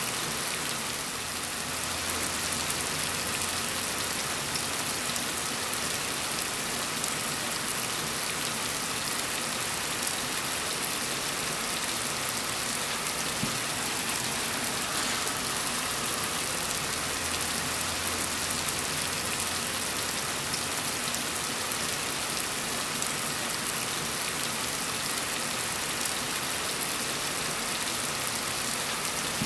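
Heavy, steady rainfall: a dense, even hiss of rain falling on surfaces. A faint low rumble comes and goes twice beneath it.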